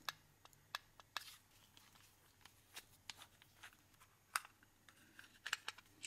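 Faint scattered clicks and taps of the white plastic casing of a Diagral wireless window opening detector being handled and unclipped open. The loudest click comes about four seconds in, and a quick cluster of clicks follows near the end.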